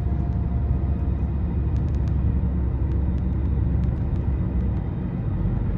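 Steady low rumble of a van driving along, its engine and tyre noise heard from inside the cabin, with a few faint clicks.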